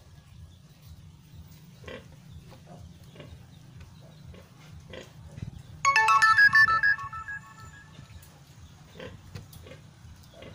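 Pigs grunting in a farrowing pen, a sow with newborn piglets. A little past halfway, a short electronic jingle of quick stepped notes plays loudly for about a second.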